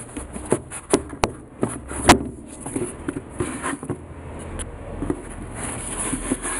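Handling noise from sneaker insoles being pulled out, flexed and shifted by hand against the shoes and a cardboard shoebox: irregular rustling and rubbing with a few sharp clicks, the loudest about two seconds in, over a steady high hiss.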